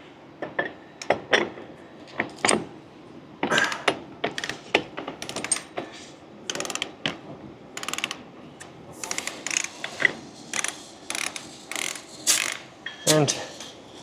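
Ratchet wrench clicking in repeated short strokes, with metallic clinks, as a special socket tool loosens the A320 main-wheel axle nut.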